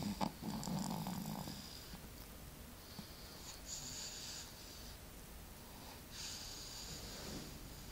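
A sleeping baby snoring. A low rasping snore comes about half a second in, then two hissy breaths follow about three seconds apart. A couple of faint clicks come right at the start.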